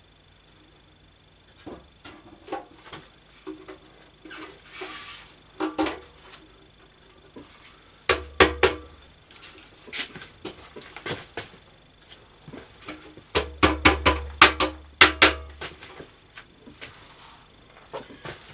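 Clanks and knocks of a steel motorcycle fuel tank being handled and set down onto the frame while it is test-fitted, metal knocking on metal. The knocks come in two louder clusters, about eight seconds in and again around fourteen seconds in.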